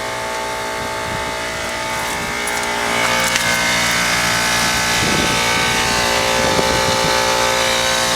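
Bard wall-mount heat pump running in cooling mode: the steady hum of its Copeland scroll compressor with the rush of the condenser fan, several steady tones held over the noise. It gets a little louder about three seconds in.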